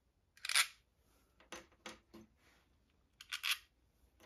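Small steel screws being worked out of a plastic battery pack's case by hand and dropped onto a wooden workbench: about six short light clicks and taps, the loudest about half a second in.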